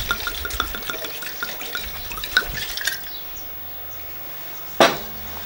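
Red wine pouring from a bottle into a hot cast-iron Dutch oven of sautéed vegetables, splashing and sizzling as it deglazes the pot. The pour stops about three seconds in, and a single sharp knock comes near the end.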